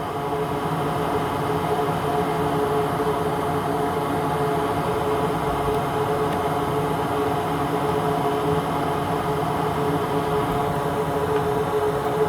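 Hakko FR-810 hot air rework station blowing, a steady rush of air with a constant hum, as it heats the solder joints of a USB-C connector for reflow.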